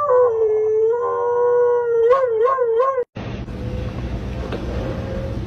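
Siberian husky howling: one long howl that drops a little in pitch early on, then wavers up and down several times before it is cut off about three seconds in. A low steady rumble follows.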